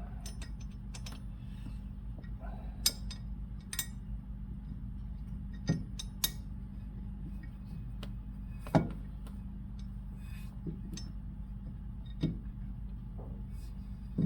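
Small metal brake parts clinking and tapping as they are worked into place by hand: a scattering of sharp clicks, the loudest about nine seconds in, over a steady low hum.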